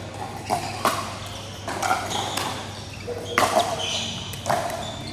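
Pickleball paddles striking a plastic pickleball in a rally: a series of sharp pocks about once a second, with short high squeaks between some of the hits.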